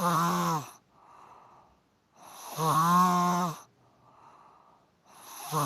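A person snoring in a steady rhythm: loud, pitched snores about a second long, close to three seconds apart, with a quieter breathy sound between each.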